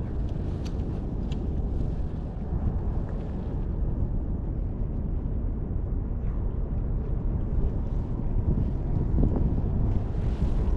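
Wind buffeting the microphone: a steady low rumble, with a few faint clicks in the first couple of seconds.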